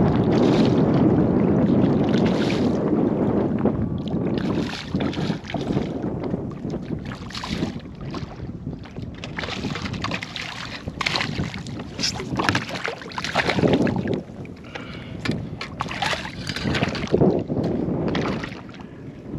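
Water splashing and sloshing irregularly around a kayak, with wind rumbling on the microphone, strongest in the first few seconds.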